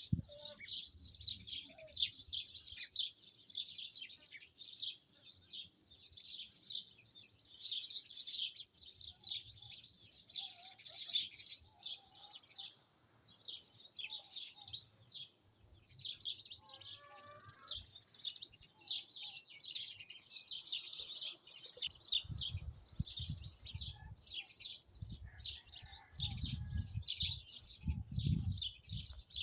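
Many small birds chirping and twittering in a dense, continuous chorus of short, high-pitched notes. Low gusts of wind rumble on the microphone in the last several seconds.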